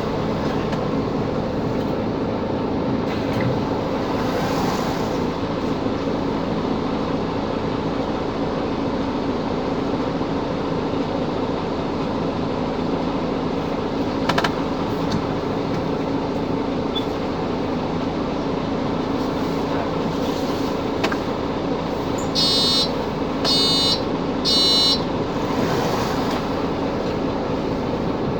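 A 2017 Mercedes-Benz Capacity L city bus running with a steady engine and driveline drone. Near the end come three short electronic beeps.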